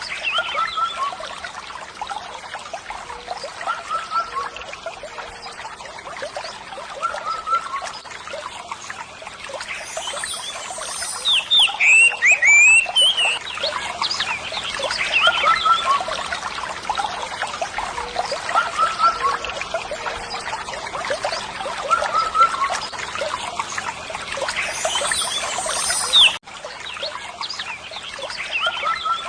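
Water trickling steadily, with short repeated chirps of birds or frogs over it; a louder run of chirps comes about halfway through.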